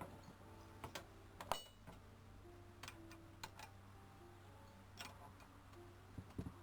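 Scattered small clicks and taps of brake caliper parts and tools being handled, the loudest about a second and a half in, over a faint steady hum.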